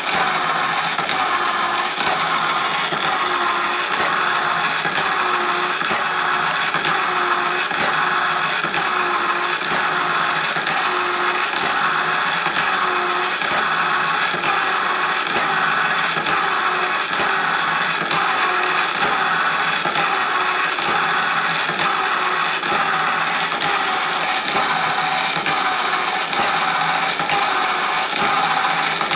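Homemade power hacksaw, driven by a crank off a washing-machine motor's pulley, sawing through a thick metal disc: the motor runs steadily while the blade's sawing strokes repeat in an even rhythm.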